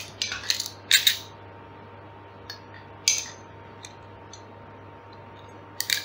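A coil of FTP Cat 6 LAN cable being handled and cut: a few short, sharp rustles and snips, the loudest about a second in, another near the middle and one near the end.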